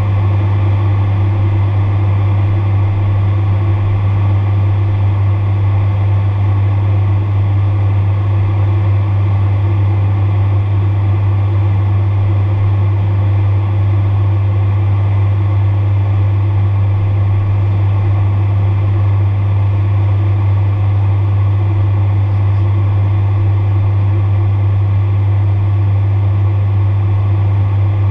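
Steady drone of a Beechcraft Super King Air 350's twin Pratt & Whitney Canada PT6A turboprops and propellers, heard inside the cockpit in flight. A strong low hum dominates, with fainter steady tones above it, and the level does not change.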